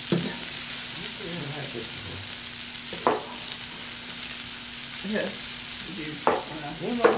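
Shrimp, scallops and meat sizzling on the grill ring of an electric hot pot, a steady hiss, with a couple of sharp utensil knocks against the pan, one about three seconds in and one about six seconds in.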